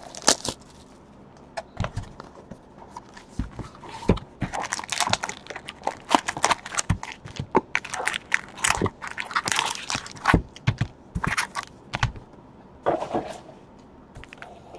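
Hands opening a cardboard trading-card box and pulling out its wrapped packs: irregular crinkling, tapping and scraping of cardboard and wrapper.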